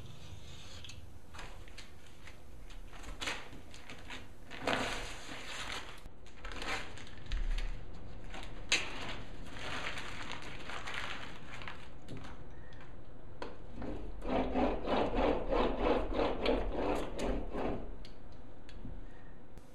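Scraping and rubbing on a sheet of glass: a knife trimming a vinyl resist sheet, then, near the end, a run of quick rubbing strokes, about three a second, as a hand tool burnishes the resist down.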